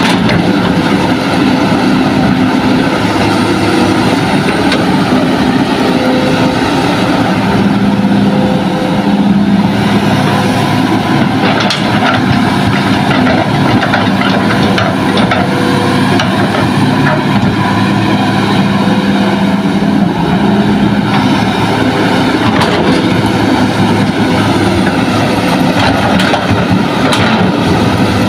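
Hitachi hydraulic excavator's diesel engine running steadily under load while it digs and loads soil, with a few short knocks.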